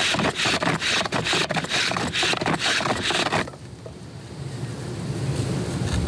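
Wooden fire drill spindle spun hard against a wooden hearth board, its tip sharpened for more friction: a rapid dry grinding scrape for about three and a half seconds, made while working up an ember. It then stops, leaving a softer low noise.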